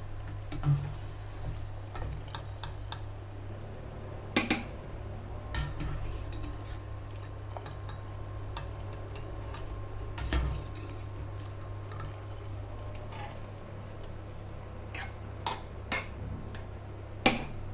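A metal spoon clinking and knocking against a cooking pot at irregular intervals as layers of rice and mushroom-paneer masala are spooned in for biryani, over a steady low hum.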